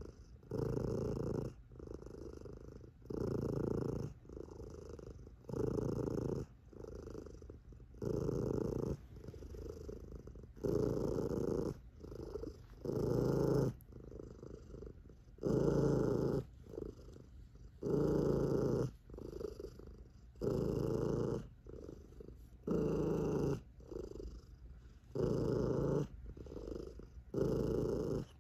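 Tabby cat purring, a loud booming purr that swells for about a second and falls back with each breath, roughly every two and a half seconds.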